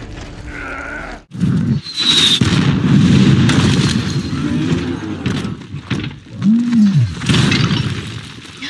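Film sound effects of a large explosion: a sudden blast about a second in, then several seconds of rumbling blast and crashing debris. A short low growl that rises and falls comes later, followed by another loud burst.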